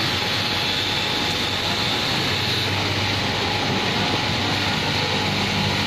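Electric straight-knife cloth cutting machine running steadily, its vertical reciprocating blade cutting through a thick lay of stacked denim, with a low hum and an even hiss.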